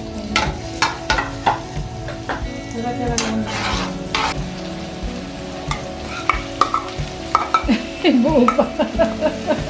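Chopped garlic and onion sizzling in hot oil in an aluminium wok, stirred with a metal ladle that clicks and scrapes against the pan. About eight seconds in, diced hotdog is scraped from a plate into the pan and the scraping and sizzling get louder.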